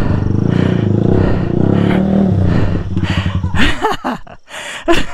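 Small single-cylinder enduro dirt bike engine running under load on the trail, its pitch rising slightly midway, then easing off about three and a half seconds in. A few short rising-and-falling pitched sounds follow near the end.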